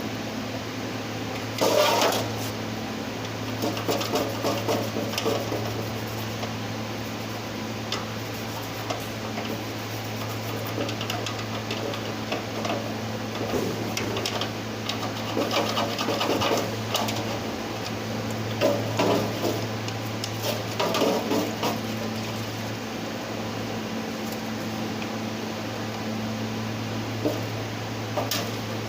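Irregular scraping and clattering of hand work on metal engine parts, over a steady low hum.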